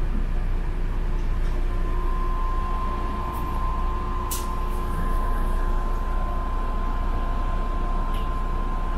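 Steady low rumble of a city bus heard from inside the passenger cabin. A thin steady whine comes in about two seconds in, with a couple of faint clicks.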